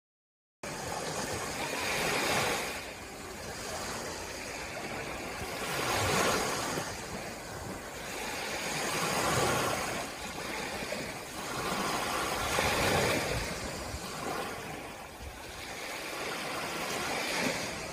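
Small waves breaking and washing up a sandy beach. The surf swells and eases every three to four seconds, cutting in abruptly about half a second in.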